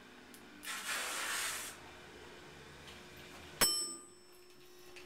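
Westinghouse elevator car: a hiss lasting about a second, then a single bright ringing ding from the elevator's chime near the end, followed by a faint steady hum.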